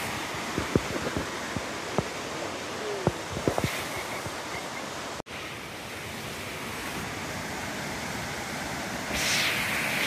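Steady rushing of a waterfall and stream, with a few sharp clicks in the first seconds. The sound drops out for an instant about halfway through, then the rush swells louder near the end.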